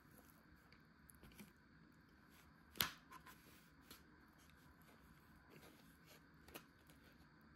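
Near silence with a few faint, short clicks and taps; one sharper click about three seconds in and a smaller one near the end.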